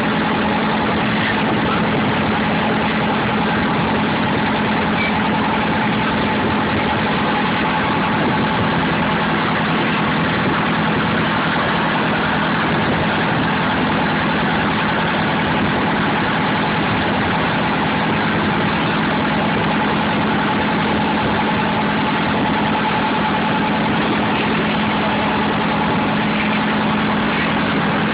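River ferry's engine running steadily, a constant drone with a low hum and a fainter higher steady tone that hold unchanged throughout.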